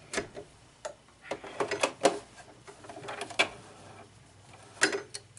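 Scattered sharp clicks and light knocks with soft rustling, from hands handling a sewing machine and the cloth just sewn on it as it is drawn out from the machine. A cluster of clicks comes about two seconds in, with another near the end.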